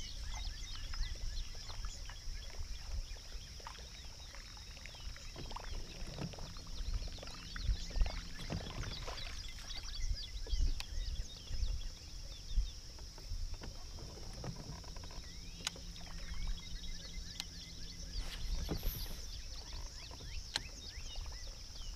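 Open-air ambience from a small fishing boat on a lake: a steady high-pitched drone under scattered knocks and clicks of the boat and tackle being handled. A faint low hum comes in twice, around a quarter and two thirds of the way through.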